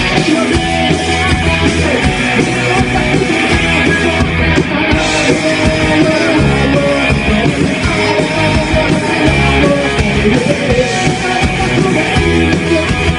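Live rock band playing loud and steady, with electric guitar, bass and drums.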